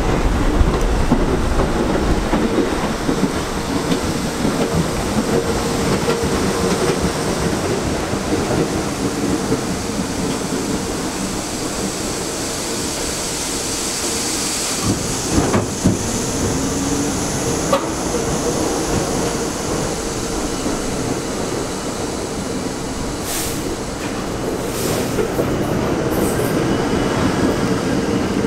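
R42 subway train pulling slowly into a station: steady running noise with a constant tone and wheel clatter, a brief wheel squeal and a couple of knocks about halfway, and a few short hisses near the end.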